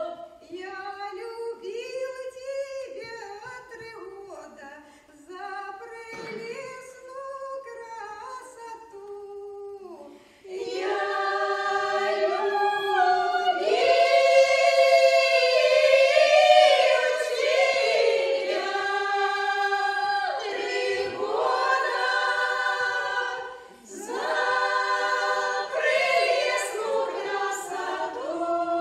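Women's folk ensemble singing a Russian folk song unaccompanied, in several parts. A softer opening phrase gives way about ten seconds in to the full group singing loudly, with a short break between phrases near the end.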